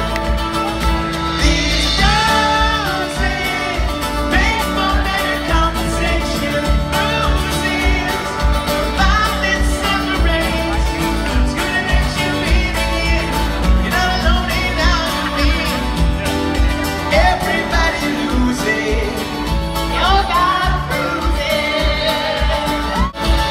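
Live band playing a pop-rock song with a lead vocal sung over acoustic guitars, bass and drums, heard from the audience in a large hall.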